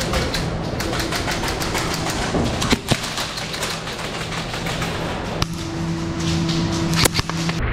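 Airsoft guns firing: dense, irregular volleys of sharp snapping shots for the first five seconds or so, thinning to a few single shots near the end.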